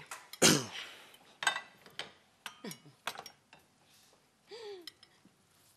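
A fork clinking and knocking against a plate in a handful of short, sharp strikes, with a brief voiced sound about four and a half seconds in.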